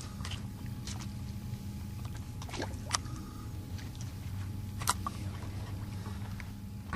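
A steady low motor-like hum, with a few sharp clicks and taps scattered through it.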